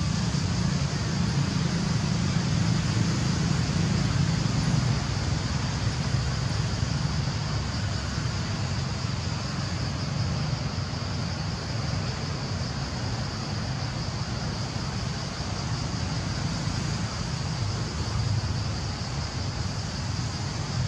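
Steady outdoor background noise: a low rumble, a little stronger for the first few seconds, with a constant high-pitched hum above it.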